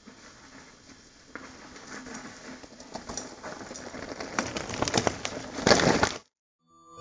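Mountain bike tyres crunching and rattling over loose stones and gravel as the bike comes closer, with sharp clicks of stones, growing louder and cutting off suddenly about six seconds in.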